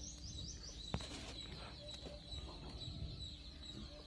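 Faint bird calls in the background: a quick run of short high chirps in the first second, over a steady faint high-pitched whine, with a single light tap about a second in.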